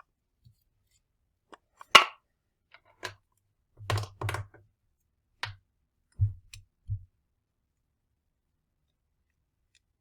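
Concrete-filled vinyl dumbbell plates and handle parts being handled: a sharp click about two seconds in, then a string of knocks and two low thuds a little past the middle.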